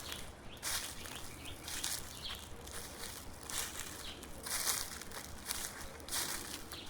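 Footsteps crunching through dry fallen leaves on a forest path, a steady walking pace of about one step a second.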